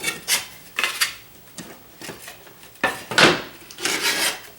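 A series of short knocks, clatters and scrapes as wooden pieces and tools are handled and set down on a hard counter, the loudest about three seconds in.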